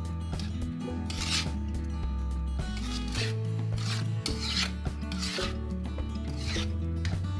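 Metal spoon scraping and stirring chicken livers in a wet soy marinade in a bowl, in rasping strokes about once a second, over background music with sustained low notes.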